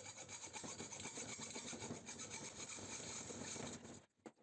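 A saw cutting a short piece of copper tube down the middle with quick, even back-and-forth rasping strokes, faint, stopping near the end.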